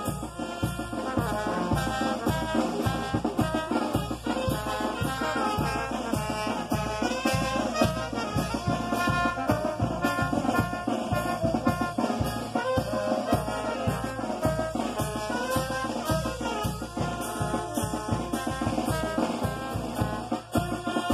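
Brass band playing a tune, horns over a steady drum beat.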